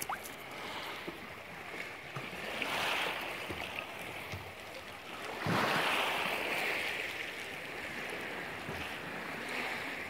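Small sea waves washing in over a pebble shore, swelling and fading about every three seconds, with the biggest wash just past halfway.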